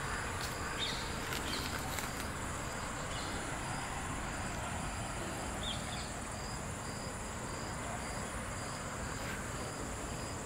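Insects, crickets among them, trilling steadily in several high tones, one of them pulsing in a regular rhythm in the second half, with a few faint clicks.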